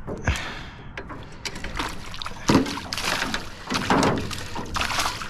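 Water splashing and sloshing in several irregular bursts: a hooked fish thrashing at the surface as it is reeled in to the boat.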